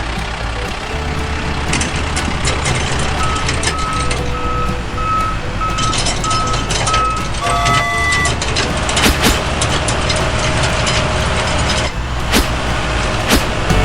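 Heavy truck engine running with a reversing alarm beeping about twice a second for several seconds in the middle. Near the end come a few sharp metallic knocks.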